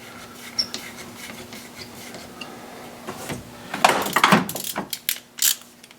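Metal hand tools being handled: a few sharp clinks and knocks bunched together about four seconds in, over a faint steady hum.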